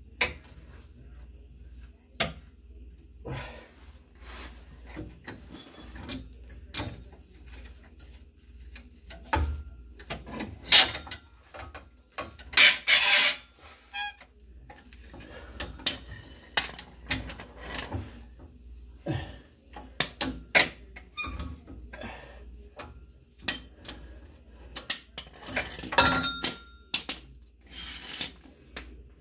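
Hand tools working on the truck's exhaust: irregular metal clicks and clinks of a socket and extension, some ringing briefly, with bursts of ratchet clicking.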